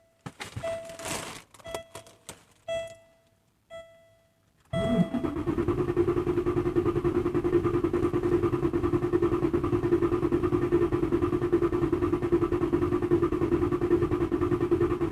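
A few short electronic beeps from the diagnostic scan tool, about one a second. About five seconds in, the V8 engine begins cranking on its starter without firing, an even pulsing drone that runs for about ten seconds. This is the scan tool's relative compression test, and its even rhythm matches the result that all eight cylinders have good compression.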